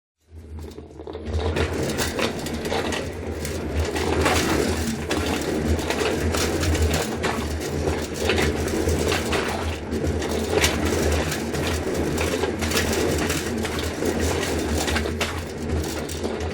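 Wheeled trolley rolling along: a steady low rumble from the wheels with a scatter of small rattling clicks. It starts a moment in, out of silence.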